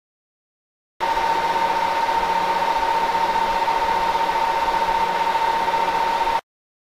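A steady droning noise with one strong high tone running through it, which switches on abruptly about a second in and cuts off abruptly shortly before the end, with dead silence before it.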